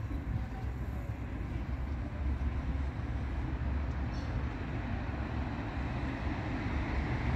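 Steady low rumble of city street traffic, with no single vehicle standing out.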